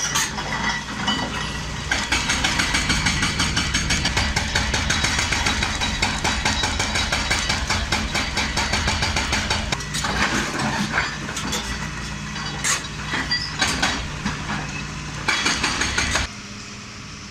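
Hydraulic excavator demolishing a concrete building: its diesel engine runs steadily under a dense clatter of breaking concrete and falling rubble, which thins to scattered crashes partway through. The sound drops off suddenly near the end.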